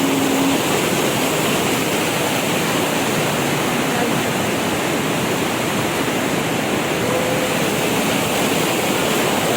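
Waterfall's falling water rushing loudly and steadily, a constant roar loud enough to drown out speech.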